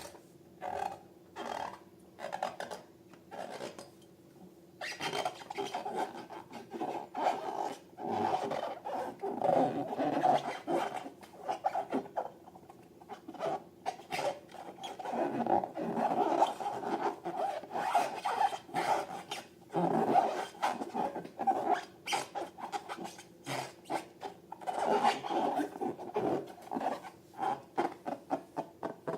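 Hands rubbing and squeezing latex balloons and slime: irregular rubbing and squishing with many short clicks, sparse at first and much busier from about five seconds in.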